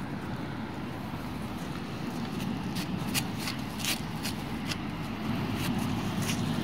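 Jindo dog on a leash walking and sniffing about on the ground: scattered light ticks and rustles of its steps, thickest in the middle, over a low steady rumble.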